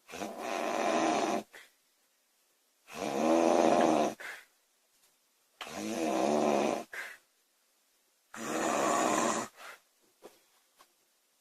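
A woman snoring loudly. Four snores come about every two and a half to three seconds, each a bit over a second long with a brief short sound just after it, and near silence between them.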